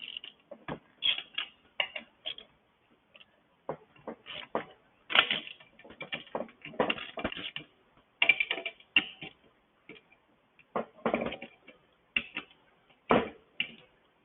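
Socket ratchet with an extension clicking in irregular runs, with metal tool clatter, while bolts are loosened.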